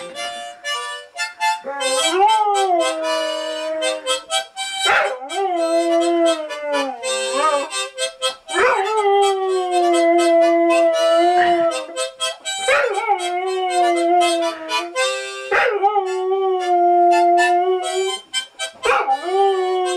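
A dog howling along to a harmonica being played: a run of long howls, each rising sharply and then holding a steady note, one every three to four seconds over the harmonica's chords.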